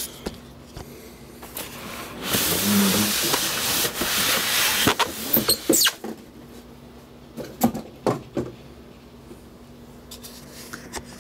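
Handling noise: a few seconds of loud rustling, then scattered clicks and knocks as the camera is set down and things are moved about on the bench.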